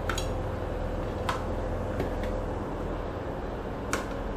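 Steady low drone of a ship's engines and machinery heard from inside the accommodation, with a faint steady tone in it. A few light clicks and knocks sound over it, near the start, a little after a second in, and near the end.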